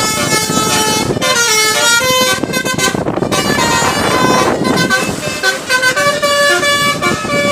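Telolet multi-tone musical bus horns playing quick melodic runs of notes, several pitches at once, changing every fraction of a second.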